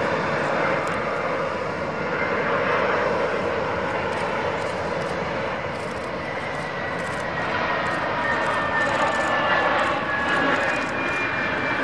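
Airbus A320-232 landing, its two IAE V2500 turbofans giving a steady jet rush through the flare and touchdown. In the second half a thin engine whine slowly falls in pitch.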